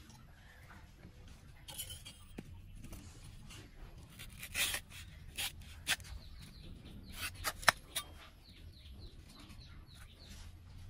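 Large knife cutting through the crown of a bunch of green bananas resting on a brick, heard as scattered sharp clicks and knocks, the loudest a little past the middle.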